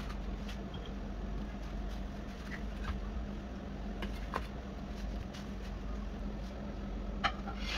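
Steady low background hum, with a few soft taps and clicks as gloved hands lift and set down baked biscuit logs on an aluminium baking pan; the sharpest click comes near the end.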